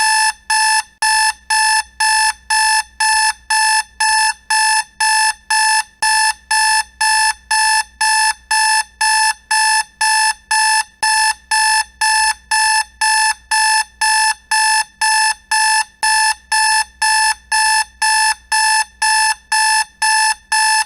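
Electronic alarm clock beeping: a single high-pitched tone repeating evenly, about two beeps a second, the wake-up signal at the end of a sleep session.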